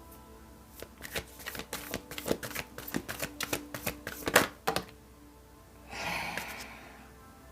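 Tarot cards being shuffled and handled: a run of quick, irregular card clicks and snaps, the sharpest about four seconds in, then a brief papery swish near the end. Soft background music plays underneath.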